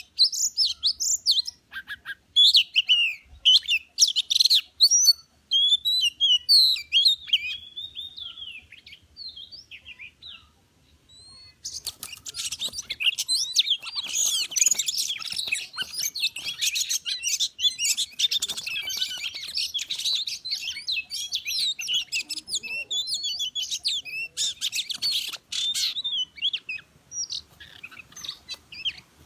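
Oriental magpie-robin singing: varied whistled, swooping phrases, thinning out briefly about a third of the way in. From there it turns into a dense, unbroken run of fast chattering calls.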